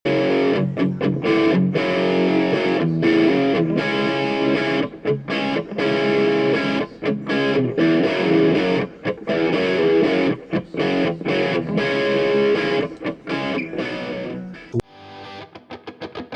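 Outro music led by distorted electric guitar. About three-quarters of the way through, it changes suddenly to a thinner part with a quick, even pulse.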